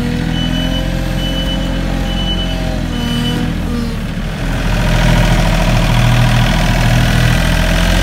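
Compact wheel loader's diesel engine running while its reversing alarm beeps about once a second. The beeping stops after a few seconds, and the engine grows louder as the loader pulls away.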